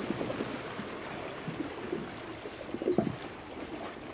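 Lake water lapping and splashing in uneven surges, the strongest about three seconds in.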